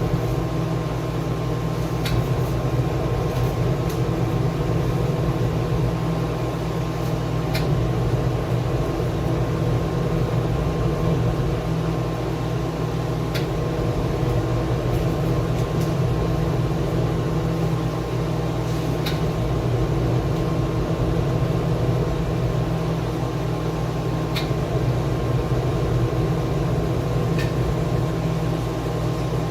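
Steady machine hum, like an appliance motor or ventilation fan, with a faint tick every five or six seconds.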